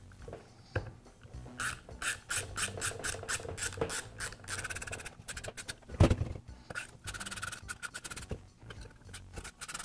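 Hand tool working the fastener that holds the shoe on a Milwaukee reciprocating saw: runs of short metallic scraping clicks, about four a second, with one louder knock about six seconds in.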